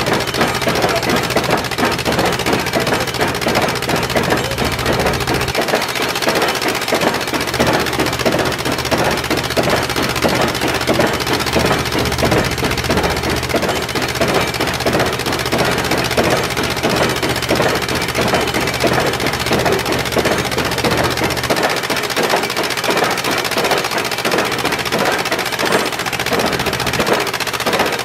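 Stamps of a restored gold ore stamp mill pounding ore in the mortar box: a dense, steady clatter of heavy iron impacts in quick succession. A low hum runs beneath it and drops away at times.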